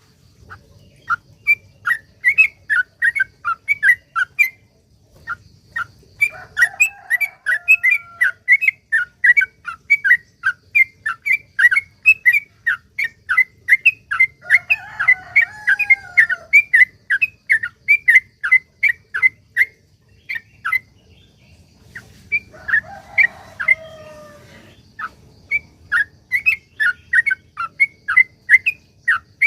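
Yellow-vented bulbul (trucuk) singing a long, rapid-fire 'ropel' series of short whistled notes, several a second, broken by brief pauses about 4–6 s in and about 20–22 s in. A lower, longer gliding call comes in three times, around 7, 15 and 23 seconds in.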